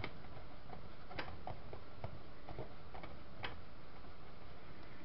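A few light, separate clicks and taps as the opened metal case of a digital TV switcher box is handled during disassembly, over a steady background hiss.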